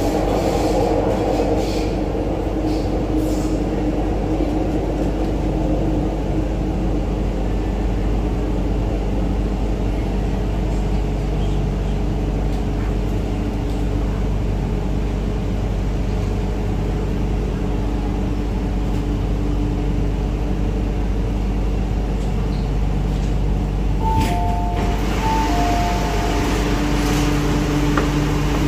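Interior of an MTR Island Line Q-Train metro car running through the tunnel and slowing into a station: steady rumble with a low motor hum. About 24 seconds in, a short two-note chime repeats, and the doors open near the end.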